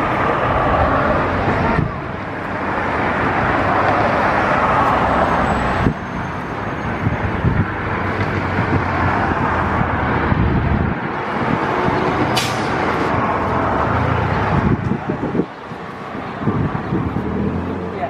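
Steady vehicle traffic noise, a continuous rushing haze, with a short high hiss about twelve seconds in.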